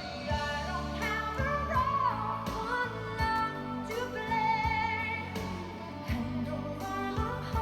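A song: a singing voice with vibrato over instrumental accompaniment.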